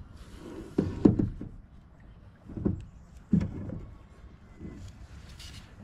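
Several dull knocks and bumps against a metal boat's hull while a found anchor is hauled up over the side. The loudest cluster comes about a second in, and two more follow a second or two apart.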